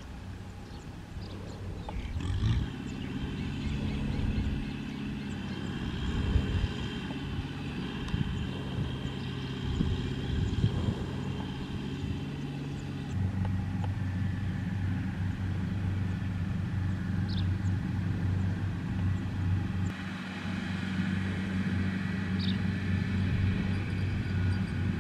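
A farm tractor's diesel engine running steadily; about halfway through its note shifts to a lower, steadier drone.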